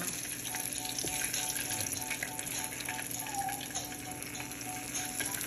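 Chicken pieces frying in hot oil: a steady sizzle with small scattered crackles.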